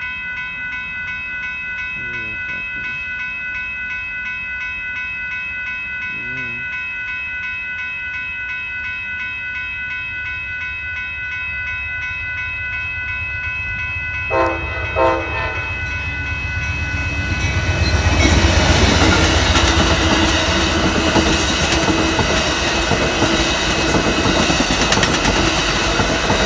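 Railroad crossing warning bells ringing steadily, then two short blasts of the Amtrak Texas Eagle's locomotive horn about 14 seconds in. After that the train arrives and passes over the crossing: a loud rumble with wheels clattering over the rails as the double-deck Superliner cars go by, the bells still ringing.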